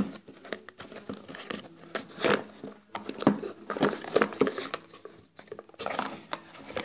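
Small cardboard box of table tennis balls being handled and opened by hand: irregular scraping, tapping and rustling of the cardboard as the flap is worked open.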